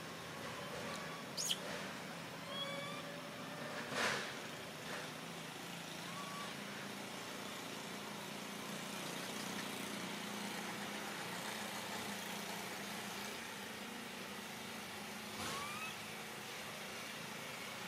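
A motor vehicle passes: a low drone over steady outdoor background noise, swelling in the middle. A few short, faint rising chirps and two sharp knocks, the louder about four seconds in, sound over it.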